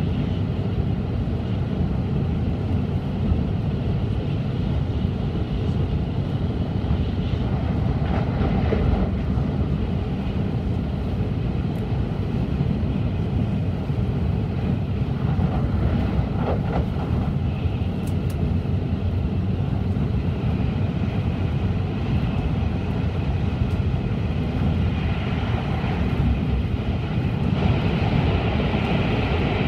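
Cabin noise of an N700-series Shinkansen running at speed: a steady deep rumble under a rushing hiss. Near the end the rushing grows louder as the train enters a tunnel.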